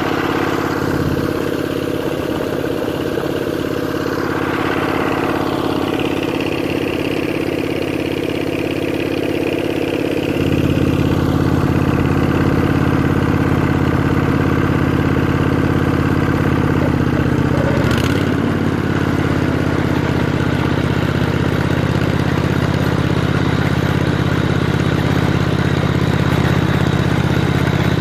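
An engine running steadily, its note dropping lower and getting louder about ten seconds in, with a single sharp click near eighteen seconds.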